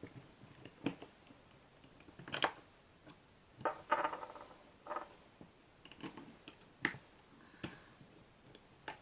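Small plastic and metal parts of a tape measure clicking and knocking as they are handled and worked apart, about half a dozen sharp clicks with a short rattle about four seconds in.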